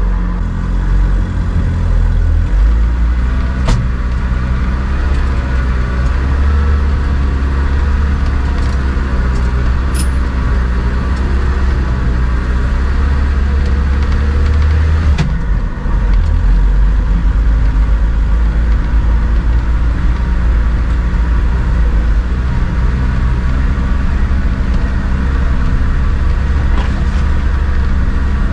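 Engine of a homemade karakat all-terrain vehicle running steadily while driving, a loud low drone. About halfway through it dips briefly and then picks up again.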